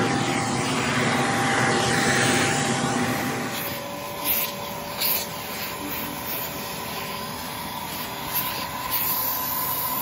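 Armor All vacuum running, its suction sucking air through a hose and crevice nozzle worked along the truck's door sill and floor mat. About three and a half seconds in the sound drops and steadies into a lower, more tonal hum, with a few short knocks as the nozzle bumps the trim.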